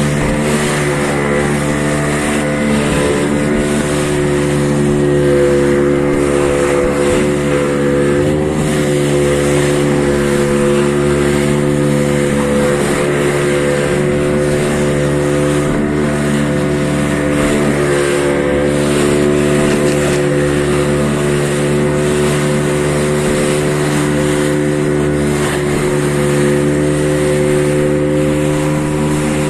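Boat engine running steadily at cruising speed, its pitch wavering briefly about eight seconds in, with the wash of water and wind.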